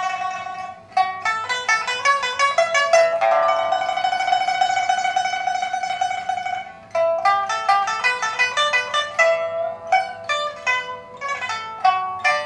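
Shen Huanchun pipa of old Dalbergia cochinchinensis rosewood with a newly replaced soundboard, played solo. It opens with quick runs of plucked notes, holds one long tremolo note in the middle, then breaks into fast plucking again.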